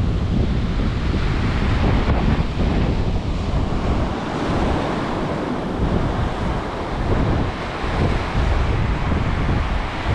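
Strong storm wind buffeting the microphone, rising and falling in gusts, over the wash of Baltic Sea surf breaking on the beach.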